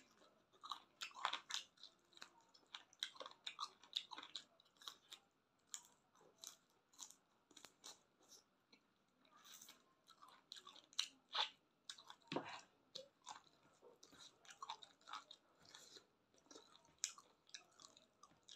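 A person chewing and biting on cooked chicken feet, gnawing the skin off the bones: an irregular stream of short sharp mouth clicks and smacks.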